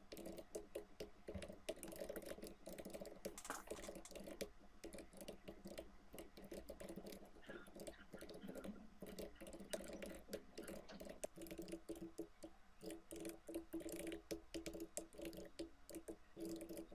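Faint typing on a computer keyboard: quick, irregular keystrokes with short pauses, over a low steady hum.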